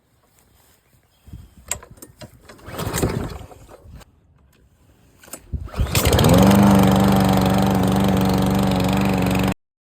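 Gas lawn mower engine cold-started by pull cord after its carburetor was cleaned: a first pull about three seconds in does not catch, then on a second pull about six seconds in it fires, revs up and settles into steady running.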